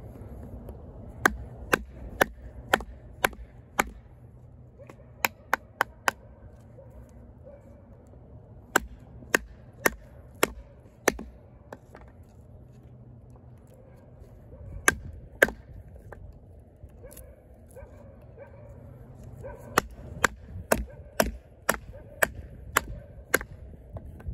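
Wooden baton striking the spine of an Oerla OLK-033RD 420HC fixed-blade knife, driving the blade through a tough piece of wood: sharp knocks in bursts of several blows, about two a second, with pauses between bursts.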